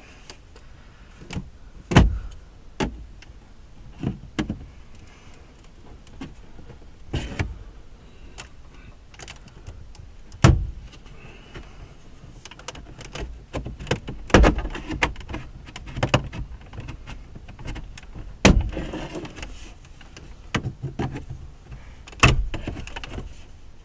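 Irregular sharp clicks, knocks and snaps of a plastic dashboard trim bezel being pried and popped loose, the loudest about five times.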